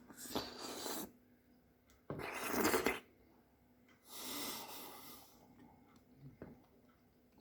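A person slurping a raw Pacific oyster from its shell: three rough sucking, slurping sounds, the middle one the loudest and longest.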